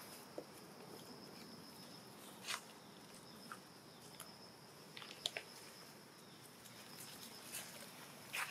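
Faint outdoor insect drone: a thin, steady high tone over a light background hiss. A few brief crackles in the dry leaf litter break in, the loudest near the end as a monkey runs across the leaves.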